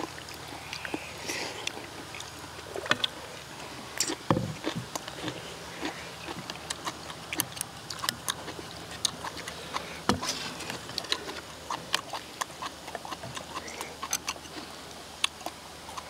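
Eating at a table: irregular clinks and taps of stainless steel spoons, chopsticks and a ladle against metal bowls and a pan, with slurping and chewing of stew.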